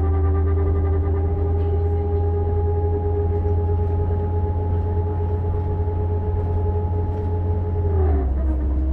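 Volvo radiator cooling fan running with a steady whine over a deep hum. About eight seconds in, the whine and hum drop in pitch together as it slows to a lower speed.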